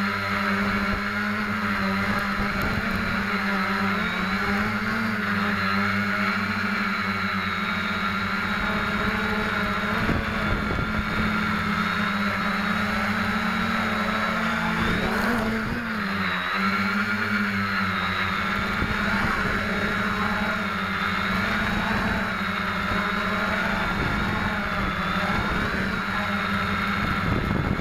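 SK450 quadcopter's four brushless motors and propellers buzzing steadily in flight, heard from a camera mounted on the frame, the pitch wavering slightly as the throttle changes.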